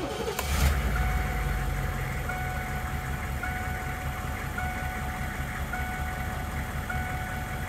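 A 2001 Hummer H1's 6.5-litre turbo-diesel V8 fires up and settles into a steady idle, heard from inside the cab, on its first start after an oil change. A short warning chime beeps about once a second over the idle.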